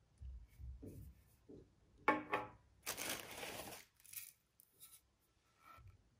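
Small handling sounds: a few soft low thuds, a short squeaky scrape about two seconds in, then about a second of rustling like something being torn, followed by a few light clicks.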